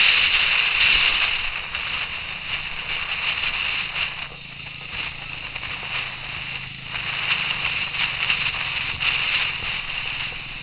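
Wind and road noise on a moving motorcycle's camera: a steady, hissy rush with a faint low engine hum beneath, easing a little about two seconds in.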